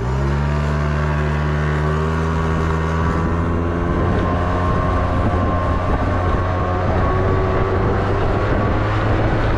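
2001 Yamaha Vino scooter's engine running hard at steady revs as the scooter picks up speed from a slow roll to about 30 mph. The pitch holds level while the speed climbs, with wind and road noise building in the second half.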